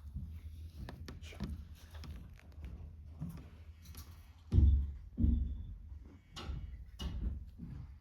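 A series of low thumps and knocks over a steady low rumble, the two loudest about halfway through.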